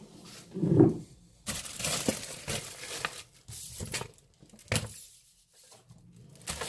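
Clear plastic packaging of a collectible figure being handled and torn open, crinkling and rustling in irregular bursts, with a dull thump about a second in.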